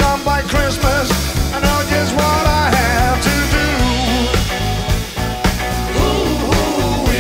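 Live blues-rock band playing: electric guitars, bass guitar and drum kit, with a lead line that bends up and down in pitch over the top.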